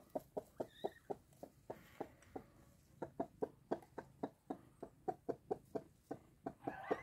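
A speckled mother hen clucking steadily in a rapid run of short clucks, about four or five a second: the steady brooding cluck of a hen settled over her brood.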